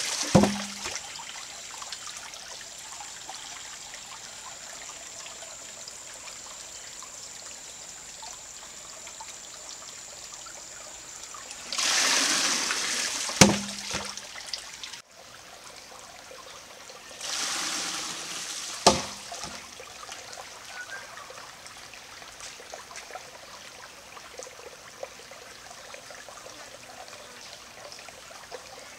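Primitive water-powered hammer working: three times, its hollow log tips and dumps its load of water in a short rush, then the wooden hammer end drops onto the stone anvil with a sharp knock. This happens near the start, about 13 seconds in and about 19 seconds in, over the steady trickle of the creek.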